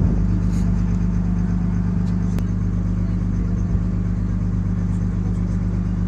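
Boat engine running steadily during a river crossing, a low, even drone.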